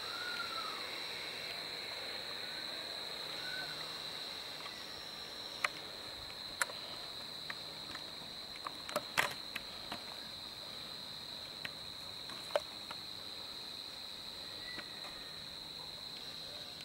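Insects chirring steadily in one high continuous tone, with a handful of short sharp clicks scattered through the middle, the loudest a little past halfway.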